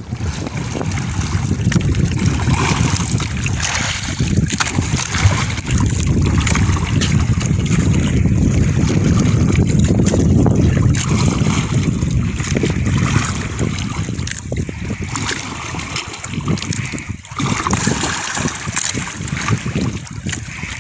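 Wind buffeting the microphone on open sea, with choppy water sloshing around a small outrigger boat.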